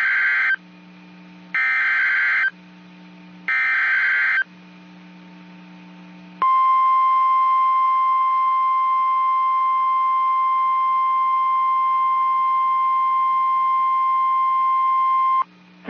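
NOAA Weather Radio emergency alert signal. First come the end of one harsh, warbling digital header burst and two more about a second each, spaced two seconds apart. Then a steady 1050 Hz warning alarm tone sounds for about nine seconds and cuts off. The tone is the signal that a new warning is being issued and that switches on weather-radio receivers.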